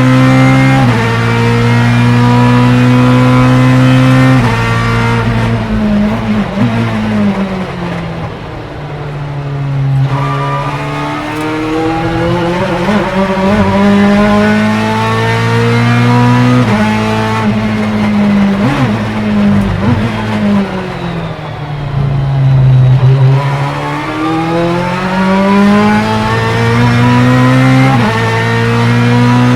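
Ferrari F430 GTC/GT2's 4.0-litre naturally aspirated V8 racing engine, pulling hard through the gears with the revs climbing and stepping down at each upshift of its sequential gearbox. Twice it falls away under braking, with blips on the downshifts, before pulling through the gears again.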